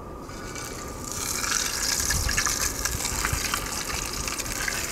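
Hot oil sizzling and crackling in a frying pan as a cornstarch-dredged whole sand sole goes in to fry, the sizzle swelling about a second in.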